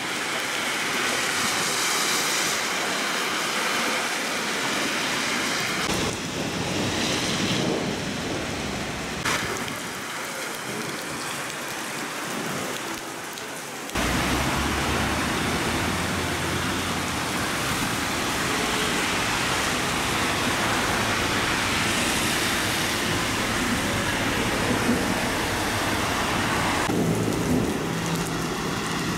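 Heavy rain pouring onto a flooded street, a steady hiss. From about halfway a deeper rumble joins it as vehicles drive through the standing water.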